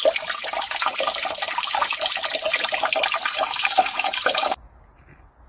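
Water running and splashing, cutting off abruptly about four and a half seconds in.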